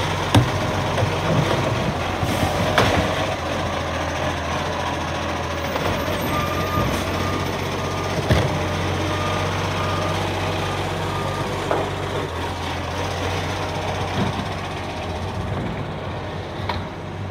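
Side-loading garbage truck running steadily while its automated arm grips and empties a wheelie bin, with a few sharp knocks, the loudest about eight seconds in. A run of short warning beeps on one pitch sounds from about six to eleven seconds in.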